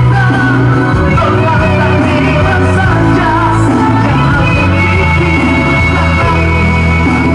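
A man singing loudly into a handheld microphone over backing music, his voice carrying a sliding melody above a steady bass.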